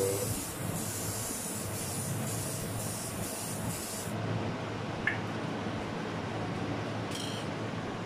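Aerosol wound-dressing spray hissing in a run of short pulses for about four seconds, then one more brief burst near the end.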